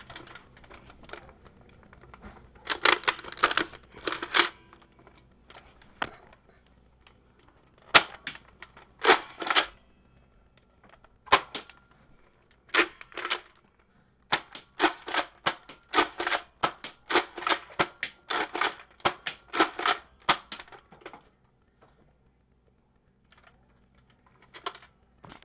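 Lanard Quickloader toy blaster firing in bursts of rapid sharp clacks, several a second, with pauses of a second or more between bursts. The longest run of shots comes in the second half.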